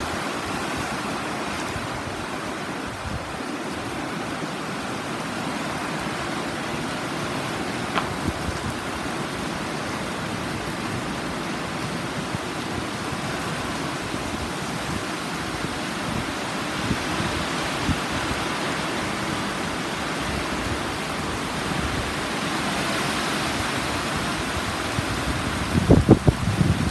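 Heavy sudden downpour: a steady hiss of torrential rain on pavement and foliage. Near the end a few gusts of wind buffet the microphone.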